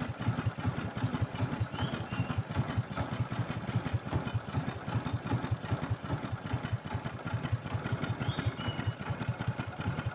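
Small boat engine running steadily with a rapid, even putter.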